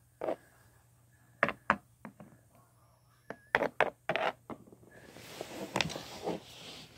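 Handling noises from plastic toys and the phone on a wooden floor: a series of short, separate knocks and taps, then about two seconds of soft rustling with a few clicks near the end.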